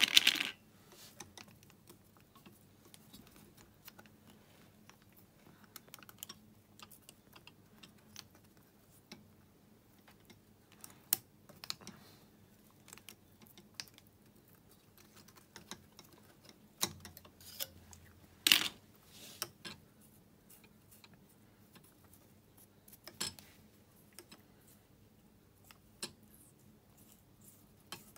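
Piston rings being worked off an engine piston by hand: scattered light metallic clicks and clinks, loudest at the very start and about two-thirds of the way through.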